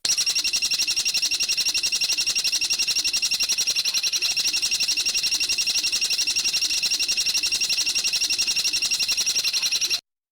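Recorded songbird trill used as training audio for cage birds: a fast, even run of high-pitched notes repeated many times a second, cutting off suddenly near the end.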